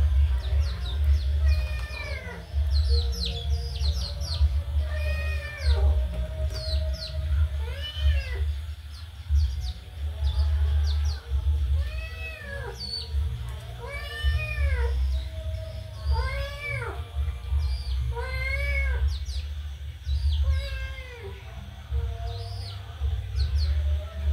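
Kitten meowing over and over, one rising-and-falling meow about every two seconds, with high, short peeps from chicks and ducklings in between and a steady low hum underneath.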